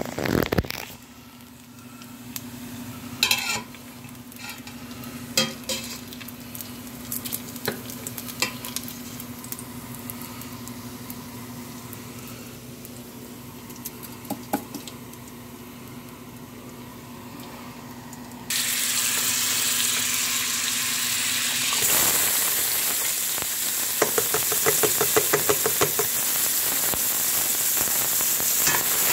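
A metal spoon clinks and scrapes in a stainless steel pot as fried bacon bits are lifted out, a few sharp taps over a faint hum. About two-thirds of the way through, a loud, steady sizzle starts as diced onion cooks in the hot bacon fat, with quick spoon scraping as it is stirred.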